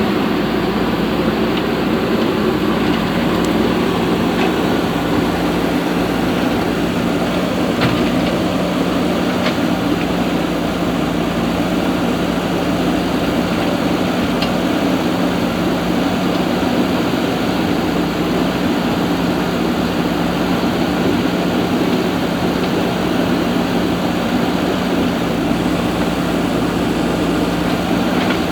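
A machine running with an unchanging steady hum and one constant low tone, never revving or slowing.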